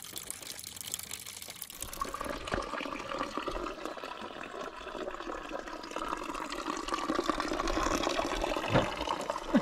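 Water running from a spring spout and splashing into a stone trough, a steady splashing trickle that grows fuller about two seconds in.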